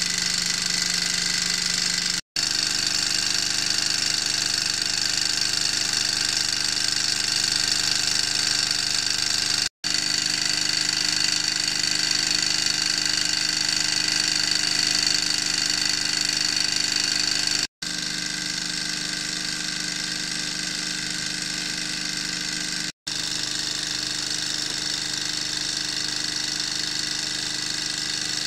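Model alpha-type Stirling hot-air engine running steadily: the fast whirring and rattling of its spinning flywheel, crank and pistons, with a constant high-pitched whine. The sound cuts out for an instant four times.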